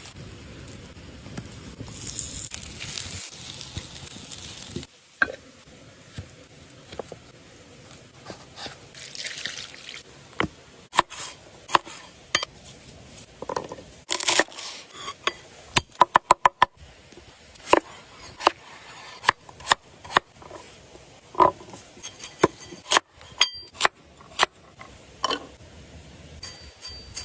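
Cookware and utensils clinking, knocking and scraping in many separate sharp strikes, with a quick run of about eight knocks about halfway through. A steady rushing noise fills the first five seconds and stops abruptly.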